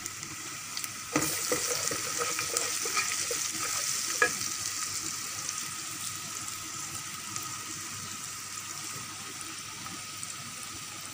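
Sliced onions sizzling in hot oil in a metal pot while a wooden spoon stirs them, with a steady hiss that eases gradually. Two sharp knocks, about one and four seconds in, are the spoon striking the pot.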